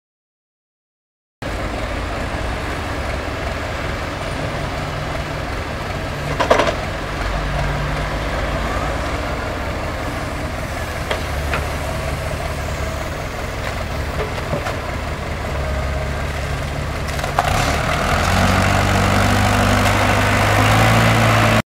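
Diesel engines of heavy machinery, a wheeled excavator and a crawler tractor, running steadily while working in sludge, starting after a short silence. There is a single metallic clank about six seconds in. Near the end one engine revs up and runs louder and higher.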